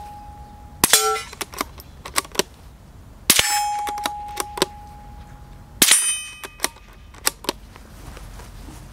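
Three shots from a Springfield 2020 Rimfire bolt-action .22 LR rifle, about two and a half seconds apart. Steel targets ring after the hits, a long steady ring after the second shot and a short one after the first. Small metallic clicks follow each shot as the bolt is worked.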